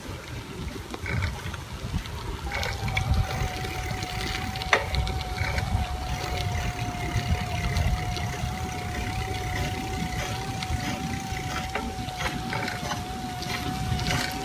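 Wind buffeting a phone microphone on a moving bicycle: a steady low rumble. A thin steady whine joins about two and a half seconds in, and there is one sharp click near five seconds.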